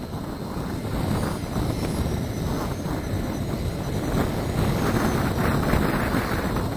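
Twin model jet turbines of a scratch-built de Havilland DH110 running at taxi power, a steady rushing that grows louder as the model rolls toward the microphone.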